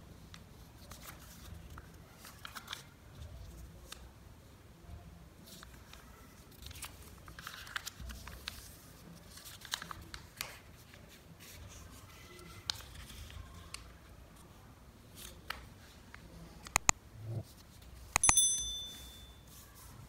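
Origami paper being folded and creased by hand: soft rustling and crinkling with scattered crisp creasing clicks. Near the end come a couple of sharp clicks, then a short bright ding.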